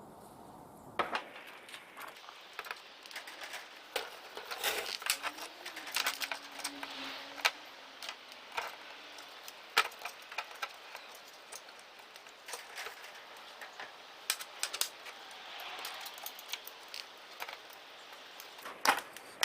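Irregular clicks, clinks and light rattles of small metal and plastic parts being handled while a microwave oven is dismantled, some knocks louder than others.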